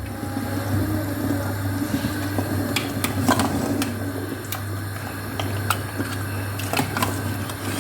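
Kitchen cooking sounds: a steady low hum under scattered light clicks and clinks of a utensil and meat against a cooking pot, the clicks picking up from about three seconds in.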